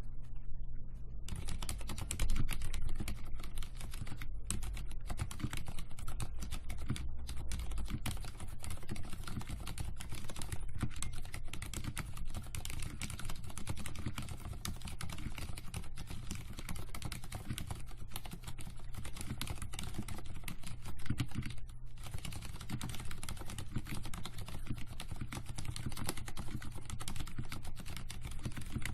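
Continuous fast typing on a mechanical keyboard with stock, unlubricated silent red linear switches: a dense run of soft keystroke clicks that starts about a second in, with a brief pause about two-thirds of the way through.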